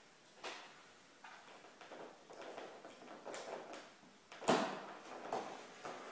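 A cardboard parcel being handled: scattered scrapes, rustles and light taps, with a sharper knock about four and a half seconds in.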